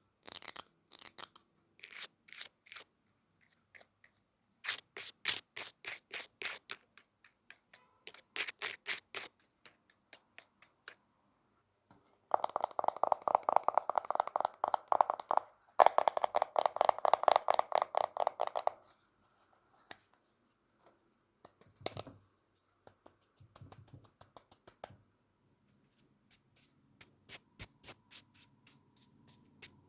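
Close-miked ASMR makeup sounds: runs of quick taps and scratches, turning into a much louder, dense stretch of rapid scratchy strokes from about 12 to 19 seconds in, with a short break near the middle, then sparse faint taps.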